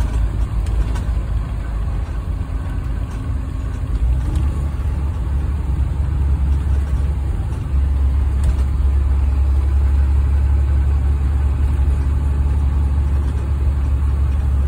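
School bus engine and road noise heard from inside the passenger cabin: a steady deep rumble that grows louder about halfway through.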